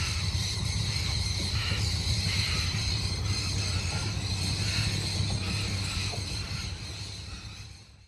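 Outboard motor of a river tour boat running steadily, with a steady high-pitched hiss above its low hum, fading out near the end.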